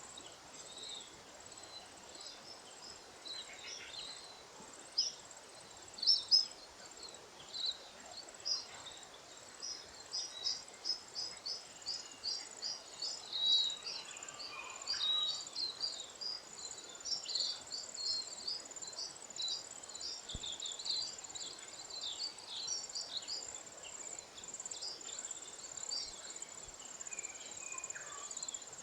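Lesser redpolls twittering: many short, high chirps in quick runs, sparse at first and busiest through the middle, with a few louder calls about six seconds in. A steady high-pitched buzz runs underneath throughout.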